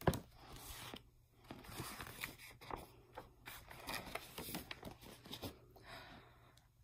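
Close handling noise of a picture book: a knock at the start, then scattered rustles and small clicks of paper as the book is lowered and its pages turned.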